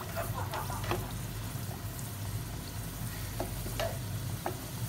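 Hollowed potato halves deep-frying in hot oil in a pan: a steady sizzle with scattered sharp clicks and pops.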